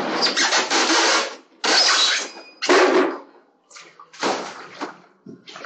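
Large whole fish being handled on a wet tiled floor and platform scale: several loud, irregular scraping bursts, each about half a second to a second long.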